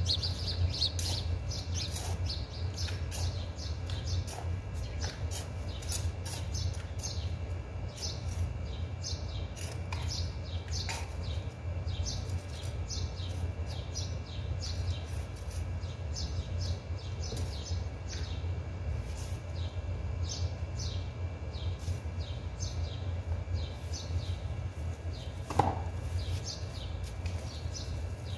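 Small birds chirping, short high chirps about two a second, over a steady low hum, with a single knock near the end.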